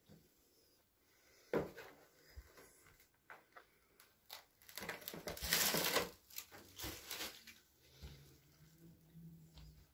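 Irregular knocks and crunching of rubble and broken boards underfoot, loudest in a longer crunch about five to six seconds in.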